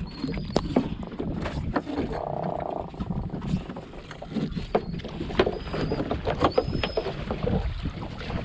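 Gillnet being hauled by hand over the gunwale of a small fibreglass fishing boat: irregular knocks, rasps and clicks of net, floats and fish against the hull, over a low steady rumble, with a few short high squeaks.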